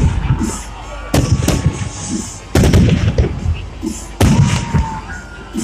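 Fireworks shells bursting overhead: a run of loud, sharp bangs about a second apart, each trailing off in a rumble and crackle, with thin whistles between them.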